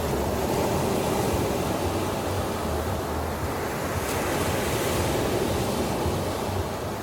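Ocean surf washing onto a beach in a steady, continuous wash, with wind rumbling on the microphone.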